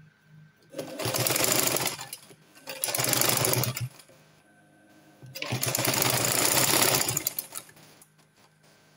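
Sewing machine stitching an inner belt onto the gown fabric in three short runs of fast, even needle strokes, with brief pauses between them as the fabric is adjusted.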